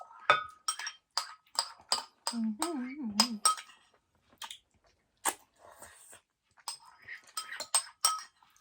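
A spoon clinking and scraping against a bowl of lugaw in quick repeated taps, scooping up the last of the porridge; the taps come in a fast run over the first few seconds and again near the end. A short wavering hummed voice sounds about two and a half seconds in.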